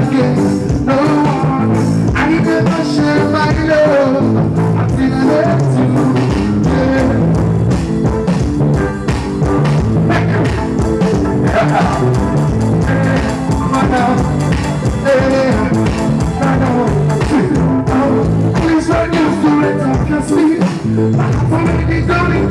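Live band music: a male singer's vocals over acoustic and electric guitar, with a steady bass line, playing loudly through a stage PA.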